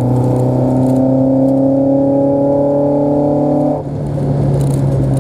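Toyota AE86's four-cylinder engine pulling under acceleration, its note slowly rising, then a brief lift about four seconds in, as in a gear change, before it pulls again at a lower pitch.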